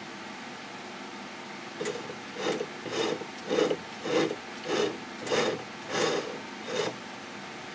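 Lathe toolbit scraping against spinning 2-inch bar stock on a 1937 South Bend lathe: about nine rhythmic rasping strokes, roughly one every half second or so, starting about two seconds in over a low machine hum. The bit is scoring a line that marks where the next cut goes.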